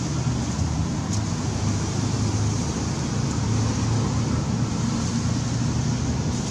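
Steady low outdoor rumble, even and unbroken, with no distinct events.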